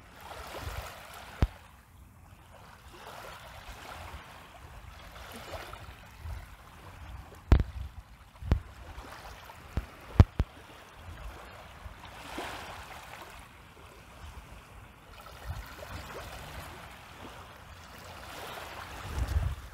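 Small waves washing over a rocky stone shore, the wash swelling and fading every few seconds, with low wind rumble on the microphone. A few sharp knocks sound near the middle.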